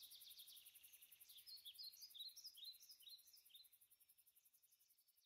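Faint dusk field ambience: a steady, evenly pulsing high insect trill, with a bird chirping a quick run of notes about a second in. It fades out near the end.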